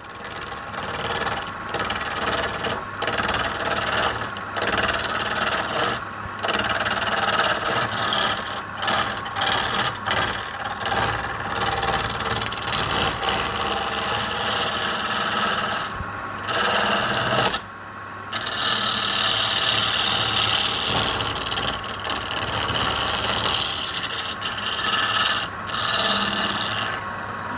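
Tool rasping against wood in long continuous strokes, broken by brief pauses a few times, over a faint steady hum.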